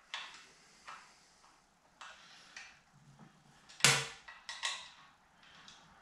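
Allen wrench tightening the screws of a metal cross block on a printhead mounting bracket: a string of sharp metal clicks and knocks at uneven intervals, the loudest about four seconds in.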